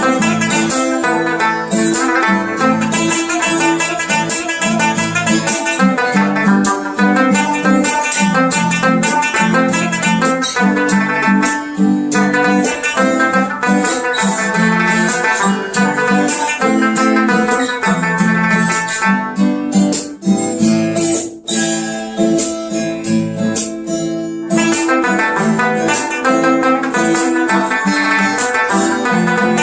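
Background music led by plucked guitar with a steady rhythm, thinning out briefly about two-thirds of the way through.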